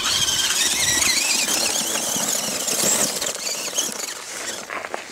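Radio-controlled off-road truck's motor and drivetrain whining, the pitch rising and falling with the throttle as it climbs over loose sand and stones, with a rough scrabbling noise from the tyres.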